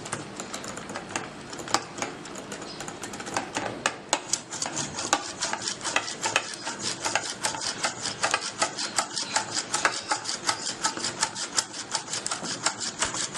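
Yogurt and milk being beaten by hand with a whisking or churning tool, the tool rattling quickly against the inside of the container in rapid clicks. The strokes grow steadier and more even after a few seconds.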